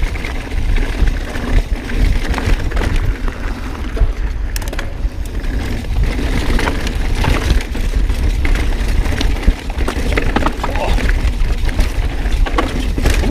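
Mountain bike riding fast down a steep, rocky trail: tyres rattling over rocks with frequent sharp knocks and clatters, over a continuous low rumble of wind on the microphone.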